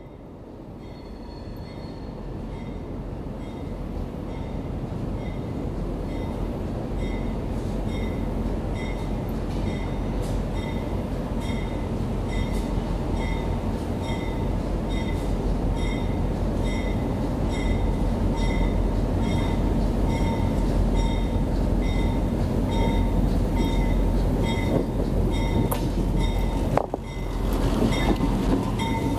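EMD GP38-2 diesel locomotive approaching along the track and growing steadily louder, its non-turbocharged 16-cylinder two-stroke engine rumbling, until it rolls right over the rail-level microphone near the end, wheels on the rail close overhead. A regular high ping repeats about one and a half times a second as it comes in.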